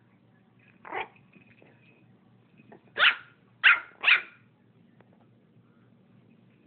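Puppy barking: four short, sharp barks, one about a second in and then three in quick succession around three to four seconds in.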